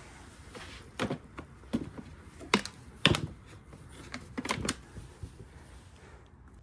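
Plastic generator parts of a Honda EU2200i being handled and fitted back together: about half a dozen sharp clicks and knocks at uneven intervals, the loudest around the middle.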